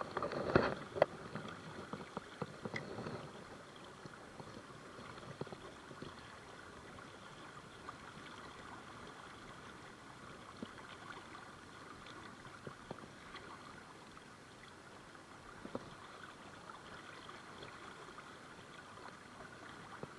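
River water flowing in a steady, even rush. A few sharp clicks and knocks come in the first second or so, with faint scattered ticks after.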